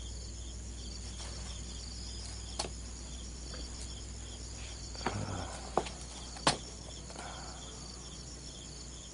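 Crickets chirping in a steady, pulsing chorus over a low hum, with a few sharp clicks, the loudest about six and a half seconds in.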